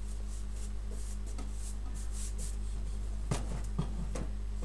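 A wooden drawer being handled and shifted on a workbench: faint rubbing and scraping of wood, with a couple of soft knocks about three and a half seconds in, over a steady low hum.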